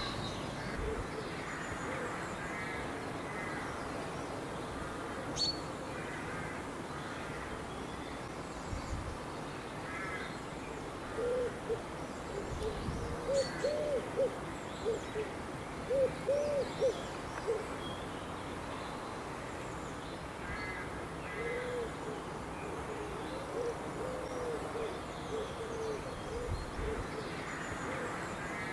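A pigeon cooing in the background: soft, low, hooting notes in short repeated phrases, loudest about halfway through and again later. Faint twittering of small songbirds runs underneath.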